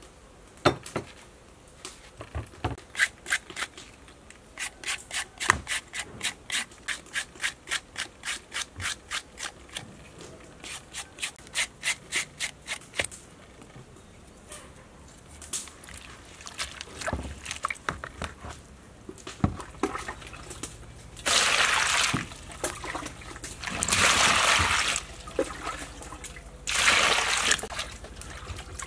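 A spoon stirring briskly in a bowl, clicking about three or four times a second. Near the end come three loud stretches of hands sloshing and rubbing vegetables in water in a metal basin.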